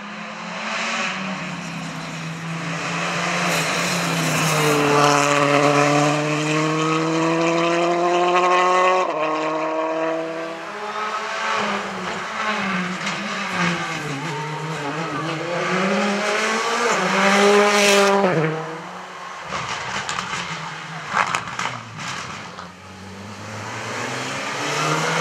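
Rally cars passing one after another at full throttle, each engine revving hard up through the gears, its pitch climbing steadily and dropping back at every upshift. Near the end come a few sharp cracks.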